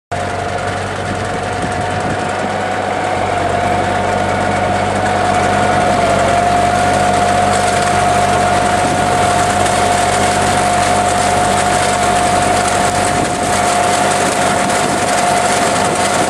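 Tractor engine running steadily as the tractor works a front-mounted vine pruning machine through a vineyard row, with a constant high whine over the engine hum. The sound comes in abruptly at the start and grows slightly louder over the first few seconds.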